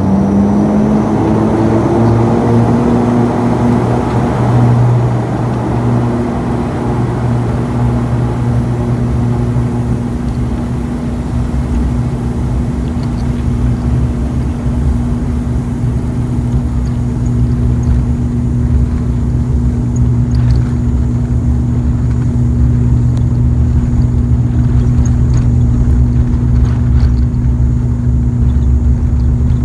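ATR 72-500's Pratt & Whitney Canada PW100-series turboprop engines and propellers heard from inside the cabin as power comes up for the take-off roll: the pitch rises over the first few seconds, then settles into a steady drone with a low hum. A few faint clicks in the second half.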